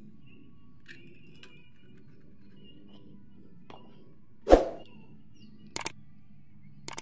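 Subscribe-button animation sound effects: a sudden loud swoosh about four and a half seconds in, then mouse clicks near the end, with the faint clatter of scooter parts being handled underneath.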